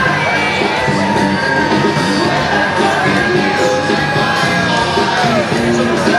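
Loud music with singing, and voices yelling and shouting over it.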